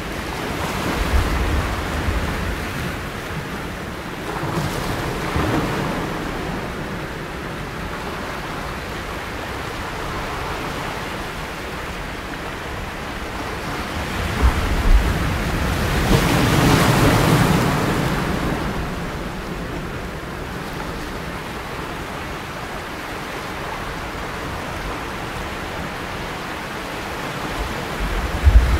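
Rushing, splashing sea water with wind on the microphone, a steady noise that swells louder for a couple of seconds just past the middle, with a couple of low thumps shortly before. No dolphin whistles or clicks stand out.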